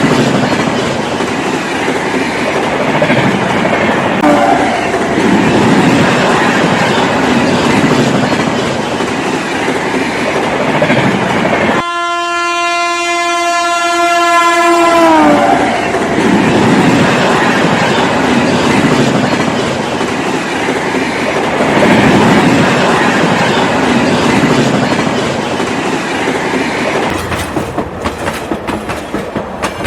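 Train running with a steady rumble and clatter. About twelve seconds in, a single train horn blast sounds for about three seconds, its pitch dropping as it ends. Near the end, a quick, even clickety-clack of wheels over rail joints.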